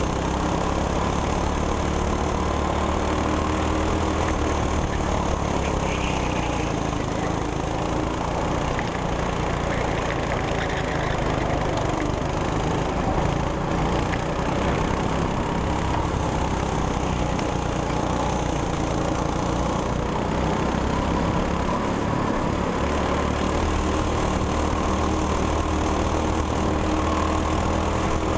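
200cc go-kart engine running under way, heard on board, its pitch rising and falling as the kart accelerates and lifts through the corners.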